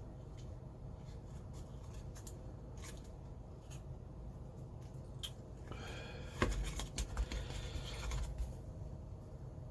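Small model parts being handled and pressed into place: light clicks and scratches, then a little past halfway a louder stretch of creaking with a few sharp knocks as a tight-fitting piece is forced in.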